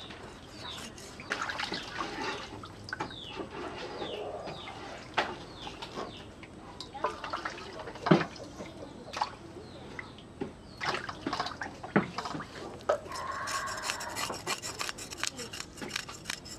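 Water sloshing and dripping as small sea fish are rubbed clean by hand in a metal basin, with occasional knocks against the basin. Near the end a knife scrapes rapidly over a fish on a wooden cutting board.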